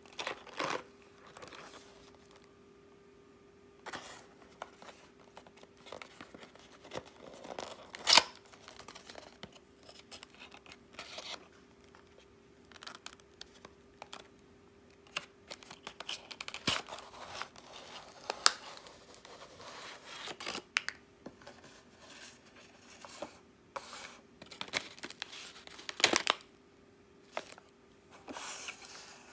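Hands opening a thin paperboard box: paper rustling, tearing and sharp snaps of the flaps, then a crinkly plastic snack pouch slid out and handled. Irregular taps and rustles, with a faint steady hum underneath.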